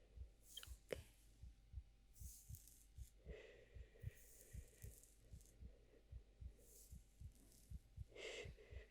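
Quiet heartbeat with a steady, even rhythm of paired lub-dub thumps. Soft high brushing noises lie over it, and there are two longer breathy swells, about three seconds in and near the end.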